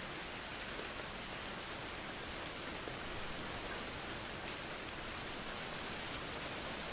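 Steady rain falling, an even hiss with a few faint individual drop ticks.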